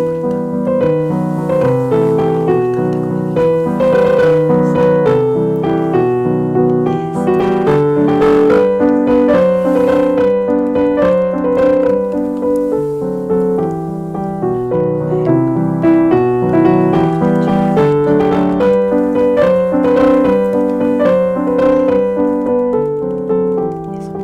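Background piano music playing steadily, notes changing in an even rhythm.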